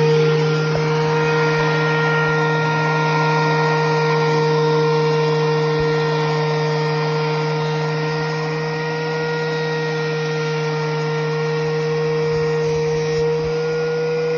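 DeWalt benchtop thickness planer running with a rough board feeding through its cutterhead. It gives a loud, steady motor hum and whine over the rush of cutting, easing slightly a little past halfway.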